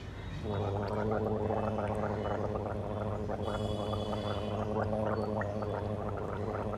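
A man gargling a mouthful of drink: a steady, fluttering hum held for about six seconds, starting about half a second in.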